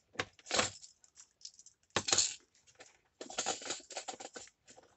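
Small hard craft supplies being rummaged through and handled: a few knocks and clinks, the loudest about half a second and two seconds in, then a run of quick small rattling clicks.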